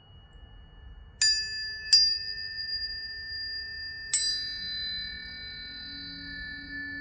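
Planetary tuning forks struck three times, about a second in, a moment later and again near the middle, the second strike the loudest. Each strike adds clear, high ringing tones that overlap and keep sounding together.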